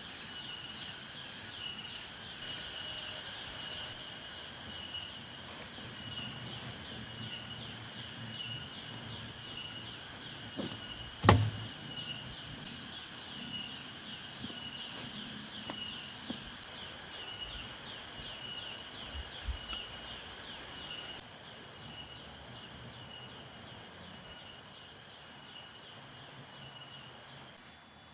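Steady high-pitched chorus of forest insects with a pulsing rhythm. A single sharp knock about eleven seconds in, the loudest moment.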